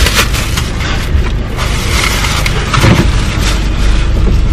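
Plastic takeout bag rustling and crinkling as it is handled, most of it in the first second or so, over the steady low rumble of an idling car.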